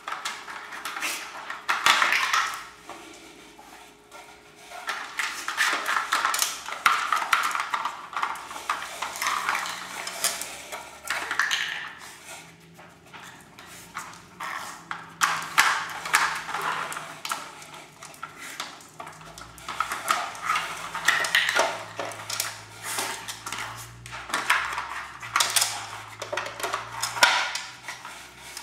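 Plastic treat-puzzle dog toys being nosed and pawed, knocking and sliding on a tiled floor: an irregular run of clacks and rattles.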